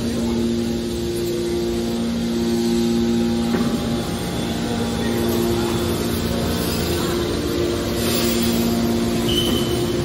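Steady machinery noise from a hydraulic metal baler's power unit: electric motors and pumps running with a low hum whose tones drop out and come back a few times, about three and a half seconds in and again about five seconds in.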